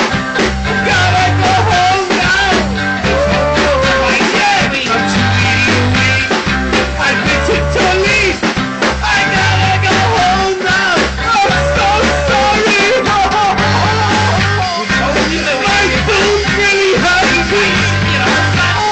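A rock band playing a song at rehearsal: drums, bass guitar repeating a short figure, and electric guitar, with a wavering melody line over the top.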